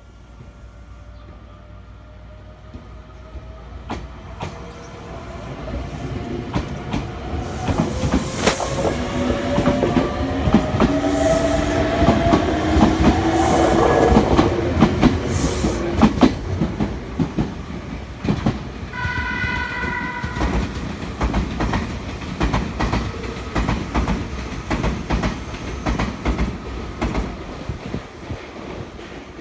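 Electric train running through the station: the motor whine rises slowly in pitch, the wheels clack over the rail joints, and air hisses in short bursts as the train grows louder and passes. About 19 seconds in comes a short horn blast of several tones, then the wheel clatter goes on.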